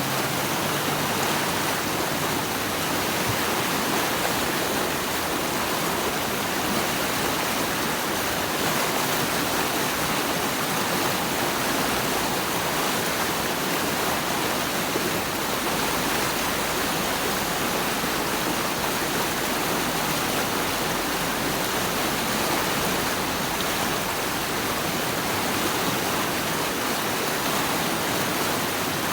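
Rushing water, a steady even hiss that does not change.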